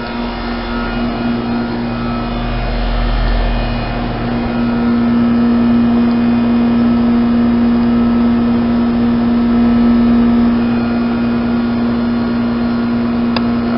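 2008 Goodman 2-ton heat pump outdoor unit running steadily in heating mode, a loud, even electrical hum with a strong steady tone and the whoosh of its fan, its outdoor coil iced up.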